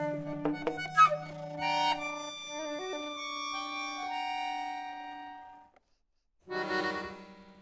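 A chamber quartet of flute, saxophone, percussion and accordion plays contemporary music: overlapping held notes, with a few sharp clicks in the first second. The notes die away about five and a half seconds in, a short silence follows, then a new chord sounds and fades.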